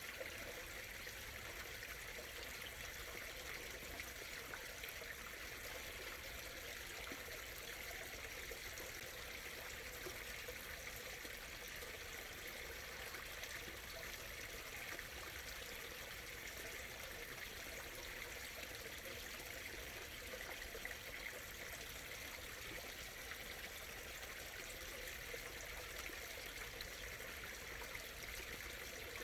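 Small stream flowing steadily, a soft, even murmur and trickle of water.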